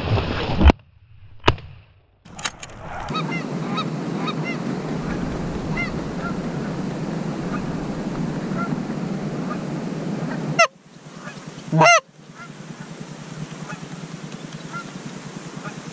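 Shotgun blasts at passing Canada geese: two close together about a second in, a fainter one soon after, and another about two-thirds of the way through. Between and after the shots, repeated goose honks.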